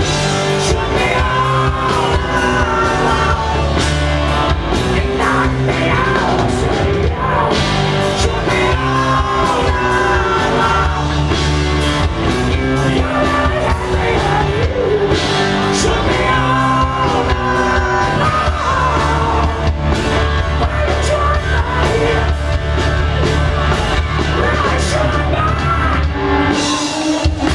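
Live band playing loud in a large hall: a singer over guitars and drums with a steady beat.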